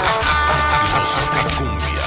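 Cumbia music played over a sound system: a deep bass line in long notes under held chords.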